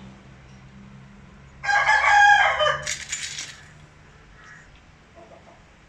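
A rooster crowing once, a single call of about two seconds starting near two seconds in, its pitch wavering before a higher, harsher end.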